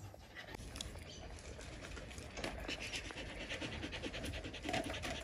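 Dog panting with quick, even breaths through its open mouth.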